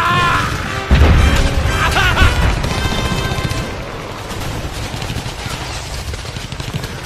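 Layered battle sound effects: explosions and gunfire over music, with a heavy boom about a second in, then a dense din that slowly fades.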